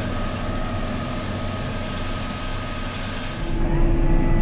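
Tractor pulling a wheel rake through cornstalks: steady engine and machinery noise with a hiss. About three and a half seconds in it switches abruptly to the louder, steady hum of the tractor engine heard from inside the cab.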